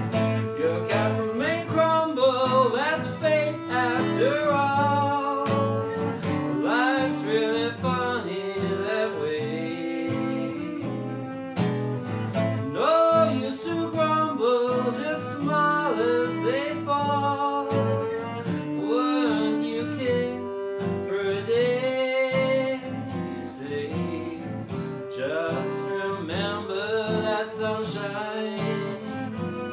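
An acoustic jazz standard played on bowed strings, a melody with vibrato over a plucked string accompaniment.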